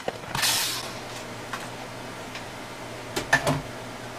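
A cordless drill/driver runs in a short burst about half a second in, backing a screw out of the wall. A few sharp clicks and knocks follow near the end as the small relay unit is handled and comes free. A low steady hum runs underneath.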